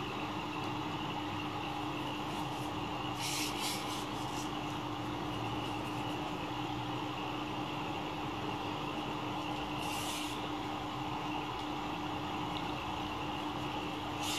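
Steady background hum and hiss with a constant low tone, broken by brief soft hissing rustles about three and a half seconds in, near ten seconds, and at the end.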